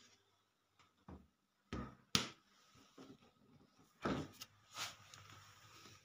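About five short plastic knocks and clatters from the fridge's interior fittings, shelves and crisper drawer, being handled and bumped, spread over the few seconds with quiet between them.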